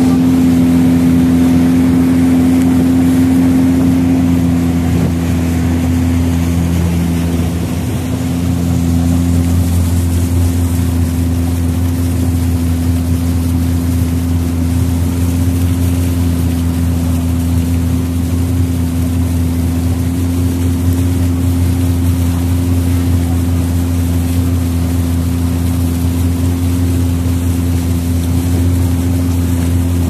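Engine of a small wooden ferry boat running steadily under way, a low even drone that dips briefly about eight seconds in.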